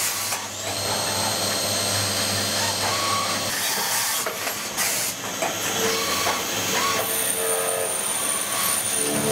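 3-spindle PORTACENTER CNC machining centre running, with a steady hiss of coolant spray and a high whine that climbs in the first second and then holds, plus a few short clicks.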